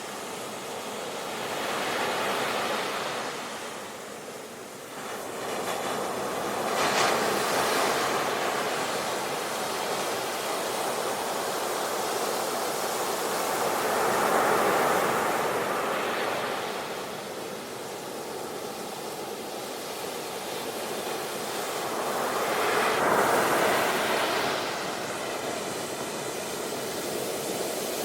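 Ocean surf: waves washing in as a steady hiss that swells and fades in slow surges several seconds apart.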